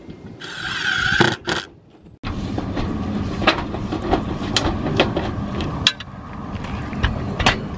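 A cordless drill/driver whirs for about a second, driving a screw into the metal roof panel, followed by a couple of sharp clicks. After a break comes a steady outdoor rush with scattered metallic clicks and knocks of a hand seamer being worked on the Galvalume panel seam.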